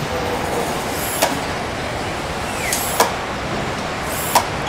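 Steady din of a car assembly hall, with three short sharp clicks about one, three and four and a half seconds in.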